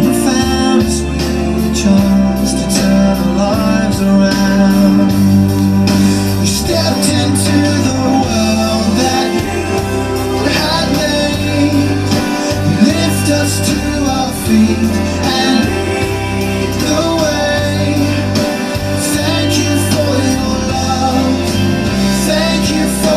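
Christian worship song playing: voices singing over an instrumental backing with a steady beat.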